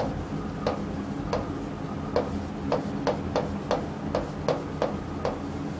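Chalk writing on a chalkboard: a run of short, sharp taps and scratches as each letter is struck, about two a second.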